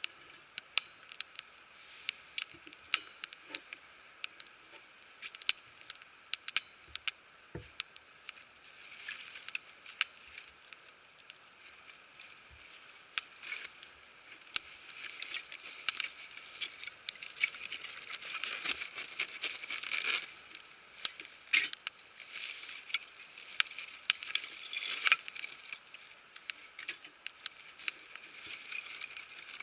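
Wood fire crackling, with irregular sharp pops and snaps over a faint hiss that grows fuller about halfway through.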